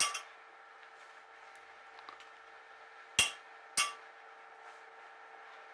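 Tap cutting threads by hand in stainless steel: three sharp metallic clicks, one right at the start and two close together a little after three seconds, as the hard stainless grabs and the chips break, over a faint steady hum.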